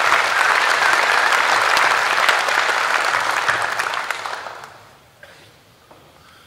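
Audience applauding, a dense clatter of many hands that dies away about four to five seconds in.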